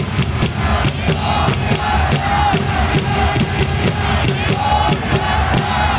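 Cheer song playing loudly over a baseball stadium's sound system, with a steady drum beat and the crowd shouting and chanting along.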